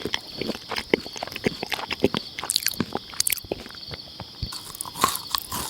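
Hamster chewing, a quick irregular run of small crunches and clicks.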